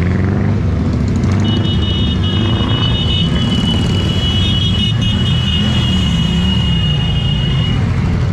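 Motorcycle engines running as a column of bikes rides slowly past, their pitch rising and falling with the throttle. A high steady tone sounds over them from about a second and a half in until near the end.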